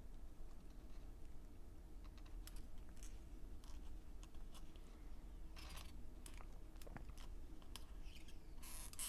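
Faint, scattered small clicks and short scrapes of a spatula working under the battery's adhesive strips inside an opened MacBook Air, with a steady low hum beneath.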